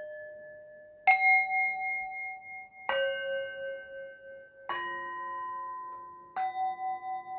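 Singing bowls struck one after another, four strikes about two seconds apart, each at a different pitch, each ringing on with a slow wobble as it fades.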